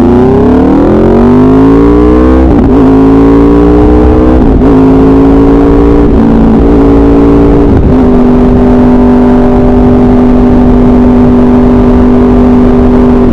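Motorcycle engine through an SC-Project aftermarket exhaust, accelerating with its note rising over the first couple of seconds. It breaks off briefly four times, about every two seconds, then holds a steady note from about eight seconds in while cruising.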